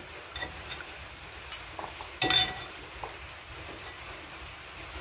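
Chopsticks and ceramic rice bowls clinking while eating: a few light taps and one louder, ringing clink a little past two seconds in.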